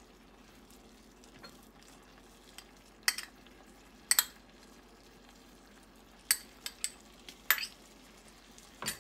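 A spoon clinking sharply against a glass bowl several times as pieces of dried mango bar are pushed out of it into the pan. Under it, a faint steady sizzle of thick tomato chutney simmering on low heat.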